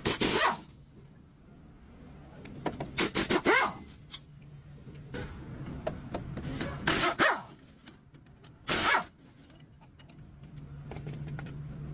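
A dog barking: four loud bursts of barks, one of them a quick run of several, over a steady low hum.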